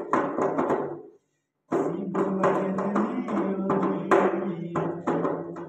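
Hand drumming on an upturned round vessel, quick rhythmic slaps, under a man's singing voice holding long notes. The sound drops out for about half a second a little after a second in.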